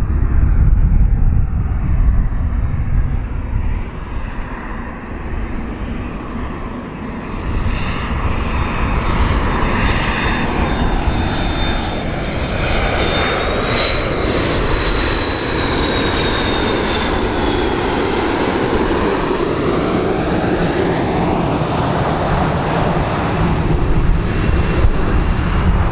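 McDonnell Douglas MD-80-series jet airliner's rear-mounted jet engines on landing approach: a steady deep rumble with a shifting, sweeping roar as the jet passes. A high whine comes in about halfway through and fades a few seconds later.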